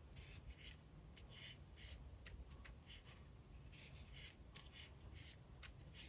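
Faint, soft rustle of a 2.5 mm metal crochet hook pulling yarn through single crochet stitches, about two strokes a second, with a few light clicks.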